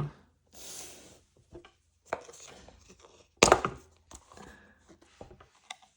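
Titanium pens being handled and put down on a table: a short rustle, a few light clicks, and one loud sharp knock about three and a half seconds in.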